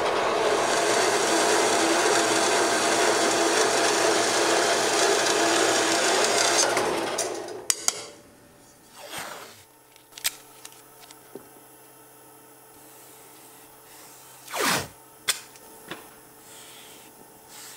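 Metal-cutting band saw cutting through a thin aluminum strip, a steady loud noise with a faint whine that stops about seven and a half seconds in. After that it is much quieter, with a few clicks and knocks from handling the strip.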